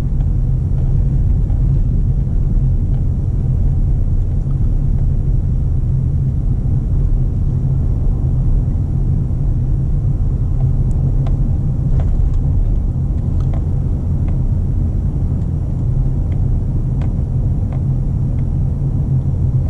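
Steady low rumble of a car being driven: engine and road noise, with a few faint clicks about halfway through.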